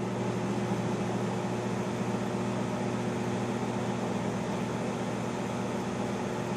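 Microwave oven running while it heats two pizza pockets: a steady hum with fan noise.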